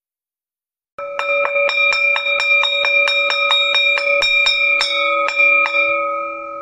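Background music with a bell-like chiming sound: struck notes about four a second over held ringing tones. It starts about a second in and fades near the end.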